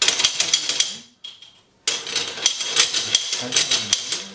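M1 Garand's steel operating rod and receiver parts clicking and rattling as the rod is worked into place during reassembly. There is a dense run of metal clicks, a short pause a little after one second, then more clicking.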